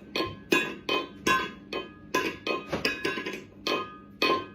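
A quick, uneven run of sharp clinking strikes, about three a second, each ringing briefly at the same few pitches.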